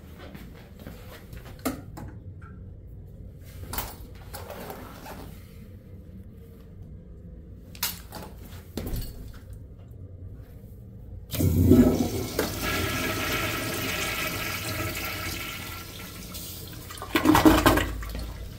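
Flushometer-valve flush of an antique Standard Madera wall-supply toilet bowl: after a few faint knocks, a sudden loud rush of water starts about eleven seconds in, holds for about five seconds and tapers off, followed by one more short loud surge near the end.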